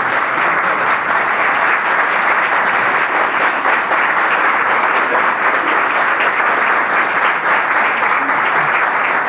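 A small group of people at a dinner table applauding, with steady, dense hand clapping throughout.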